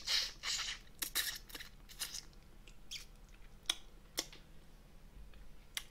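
Close-miked eating sounds of someone chewing braised monkfish: a few bursts of wet chewing in the first two seconds, then a few isolated sharp clicks.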